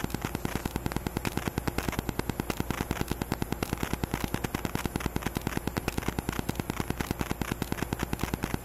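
Rapid, even clicking buzz of electrical interference, about ten clicks a second over a low hum, from a GoPro camera's Wi-Fi leaking into an external microphone.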